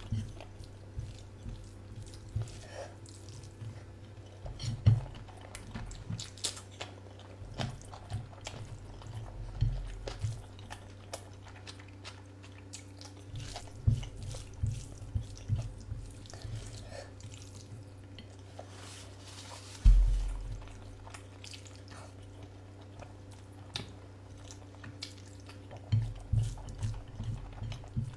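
Close eating sounds: a person chewing curry, with wet smacks and clicks in irregular clusters. One loud, dull thump comes about twenty seconds in.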